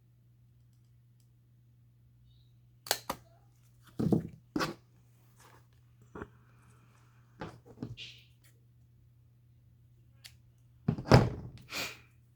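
Irregular knocks and thunks of craft materials being handled and set down on a work table, loudest near the end, over a steady low hum.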